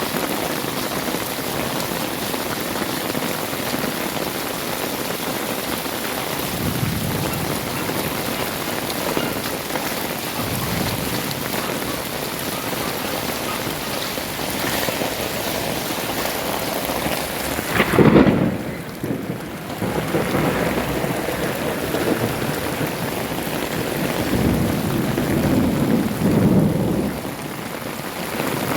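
Heavy rain falling steadily, with a sudden loud thunderclap about two-thirds of the way in and low thunder rumbling near the end.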